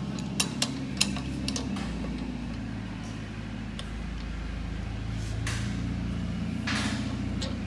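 Steel adjustable wrench clicking against a brass packing nut three times in the first second as it is fitted, then a couple of brief scrapes later as the nut is turned, over a steady low hum.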